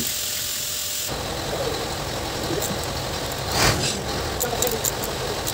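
A hand ratchet and socket working on the aluminium cylinder head's bolts: one sharp metallic clink midway and a few light clicks near the end. Under it is a steady low mechanical rumble that comes in about a second in.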